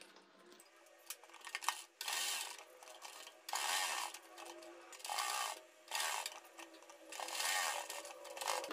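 Domestic sewing machine stitching in about six short stop-and-go runs, each under a second, as net is edge-stitched onto a neck piece.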